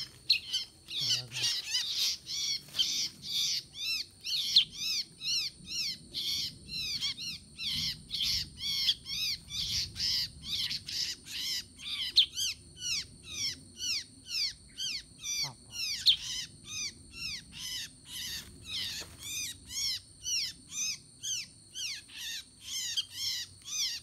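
Bulbuls (kutilang sutra) calling in a dense, regular series of short arching chirps, about two to three a second, with a faint steady high whine behind them.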